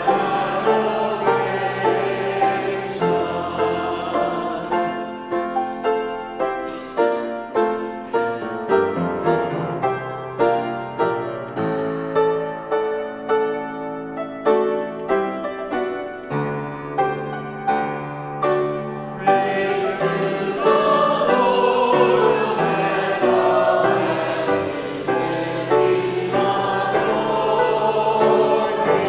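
Church choir singing an anthem with piano accompaniment. Through the middle the piano's struck notes stand out, and about twenty seconds in the full choir comes back louder and fuller.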